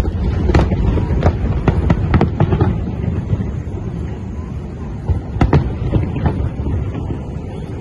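Fireworks display going off: an irregular run of sharp bangs and crackling pops over a low continuous rumble. The bursts come thickest in the first few seconds and again about five and a half seconds in.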